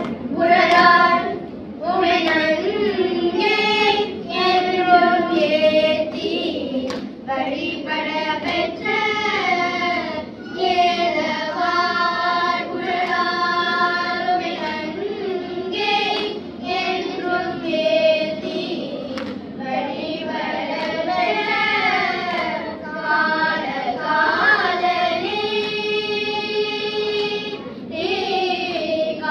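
A group of children singing a Tamil devotional hymn together in Carnatic style, one melody sung in unison without break, holding one long note near the end.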